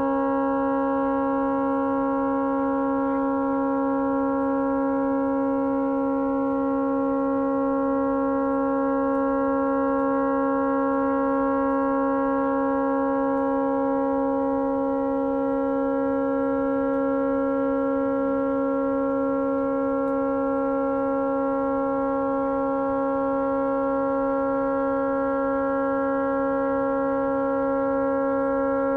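A tugboat horn stuck on, sounding one continuous, steady blast of several tones that never breaks. The horn has malfunctioned and cannot be shut off.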